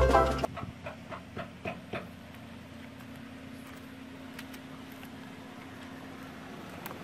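Banjo background music that cuts off about half a second in, followed by a quick run of light knocks and then steady, fairly quiet outdoor hiss with a faint low hum.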